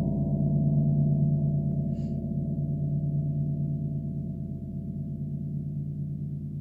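Gong ringing on and slowly dying away: a deep, dense hum of many overlapping tones, strongest in the low range, gradually fading.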